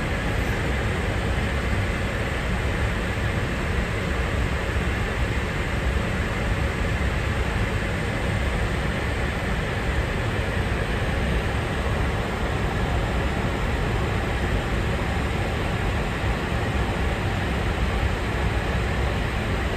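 Steady noise of an Airbus A350 airliner at cruise altitude, heard inside the aircraft: a constant low rush with a lighter hiss above it, unchanging throughout.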